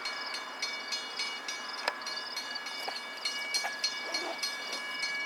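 CN freight train, with a regular clicking about three times a second over steady high-pitched ringing tones.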